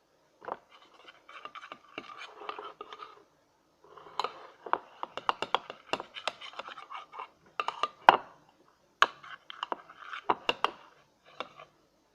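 Glue slime being stirred in a bowl after the eye-drop activator goes in: a utensil scraping around the bowl with sharp sticky clicks, in three bouts with short pauses between.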